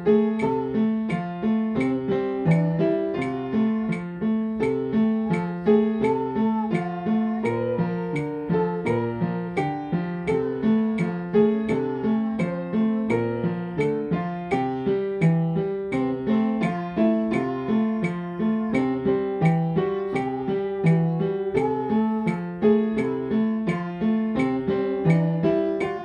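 Upright piano played at a steady tempo: a short jazz practice piece with a repeating low left-hand pattern under the melody. A steady click, about two a second, keeps time behind it, from a phone on the music stand.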